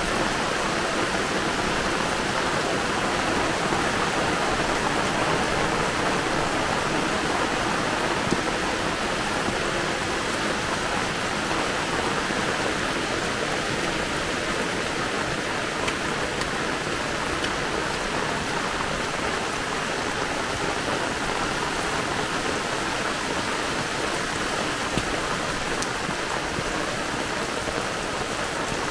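Heavy downpour falling steadily: a dense, even hiss of rain, with a few single louder drop hits.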